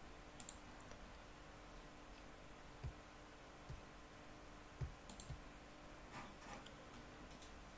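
Sparse, quiet clicks of a computer mouse and keyboard: a double click about half a second in, single clicks a few seconds later and a quick cluster around the middle, over faint room tone.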